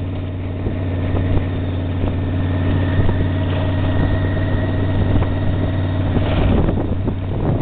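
Yamaha Venture touring motorcycle's V4 engine running steadily at low speed on a dirt track, with wind on the microphone.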